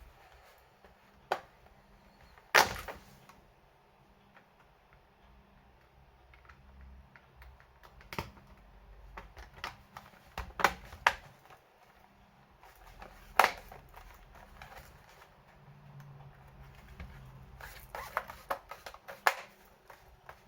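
Laptop being handled during repair work: irregular sharp clicks and knocks of plastic and small parts, about a dozen spread out, the loudest a couple of seconds in, with a quick run of small clicks near the end.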